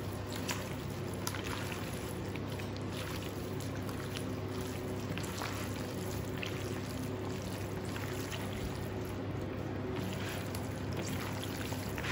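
Gloved hands mixing crumbled ricotta into roasted capsicum strips in a plastic bowl: faint soft squelches and glove rustles over a steady low hum.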